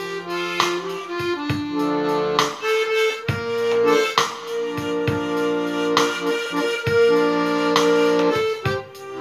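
Piano accordion playing a tune over a steady bass-and-chord beat about once a second. A harmonica, held at the player's mouth in a neck rack, plays along in long held notes.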